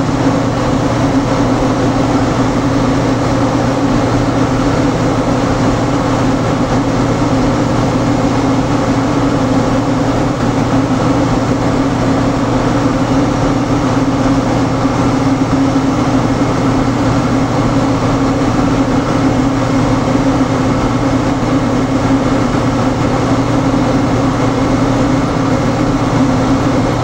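Nissan Diesel truck's diesel engine running steadily, a loud even drone with no change in speed.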